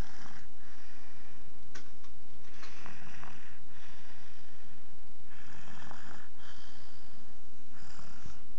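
Snoring: slow, noisy breaths about every two and a half seconds, each lasting about a second, over a steady low hum.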